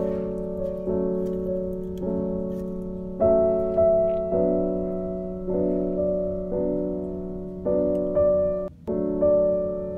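Background piano music: slow sustained chords changing about once a second over a steady low note.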